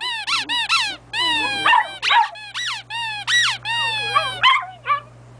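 Rubber squeaky dog toy squeaking in quick runs, several squeaks a second, mixed with a dog's high whining howl. It stops a little before the end.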